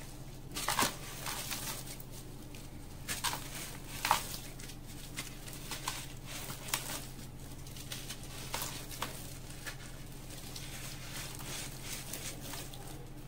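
Sand-cement mix crumbled and squeezed by hand over a tub of water: gritty crunches and soft patter as crumbs drop into the water. The crunches are densest in the first few seconds and thin out toward the end.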